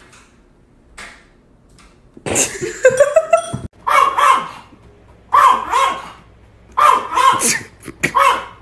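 Small dog barking in repeated short bursts of yaps, starting about two seconds in, at a cat on the other side of a window.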